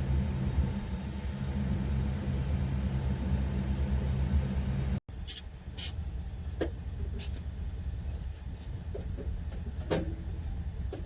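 Detroit Diesel Series 60 12.7-litre inline-six diesel running steadily, on its first run after nearly three years standing. About halfway through the sound cuts off abruptly, then the engine carries on quieter, with a few sharp clicks over it.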